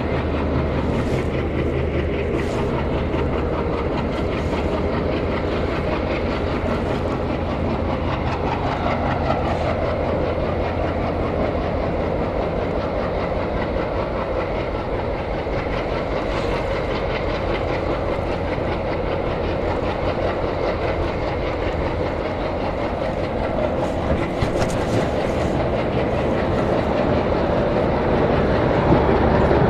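Passenger train running on the rails, heard from on board: a steady rumble of wheels on the track, with clickety-clack over the rail joints.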